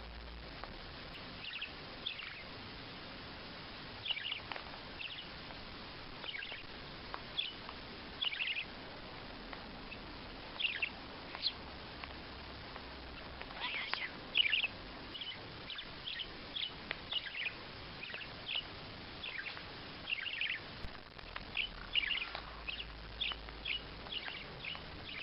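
Birds chirping: short, high, falling chirps, scattered at first and coming thick and fast in the second half, over a steady background hiss.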